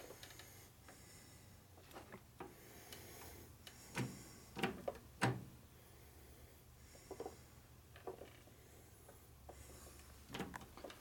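Steel hand tools and parts clinking and knocking as they are handled around a lathe's carriage and tool tray: scattered separate knocks, the loudest few about four to five seconds in, over a faint low hum.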